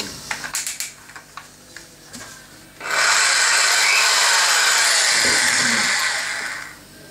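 A power drill's chuck clicking as it is hand-tightened on a pen-barrel trimming bit, then the drill running free with no load for about three and a half seconds before it spins down.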